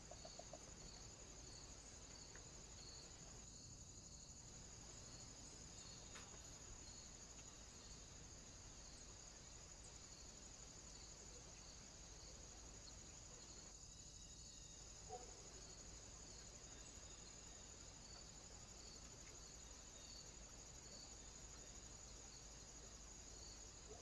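Near silence with a faint, steady, high-pitched insect trill typical of crickets, pulsing evenly throughout. A few faint ticks, and one brief short sound about fifteen seconds in.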